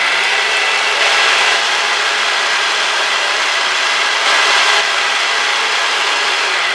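Kenwood stand mixer running at high speed, its whisk beating eggs in a plastic bowl: a loud, steady motor and whisk whirr. Near the end the motor starts to wind down as it is switched off.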